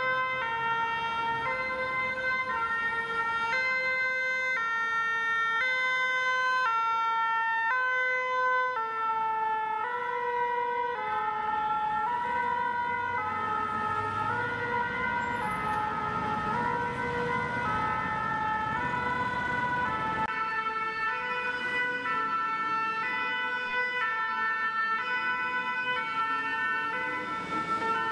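French two-tone fire-brigade sirens, the 'pin-pon' of Paris Fire Brigade vehicles, alternating between two notes about every two-thirds of a second. Partway through, more than one siren overlaps as the command car, fire engine and ladder truck pass in convoy. Engine and traffic rumble runs underneath.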